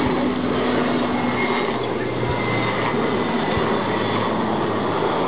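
Rooivalk attack helicopter in display flight: a steady rush of turbine and rotor noise, with a humming tone that drops lower about a second and a half in.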